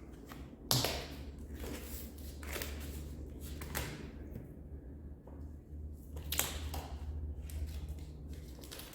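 Tape being pulled off the roll and pressed along a windshield: scattered crackles and taps, sharpest about a second in and again after six seconds, over a steady low hum.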